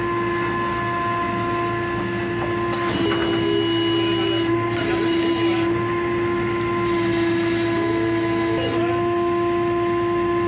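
Unloading machinery running with a steady humming tone, with three bursts of hissing noise over it.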